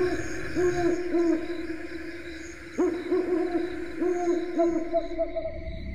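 Owl hooting: a run of short hoots, a pause of about a second and a half, then a second run.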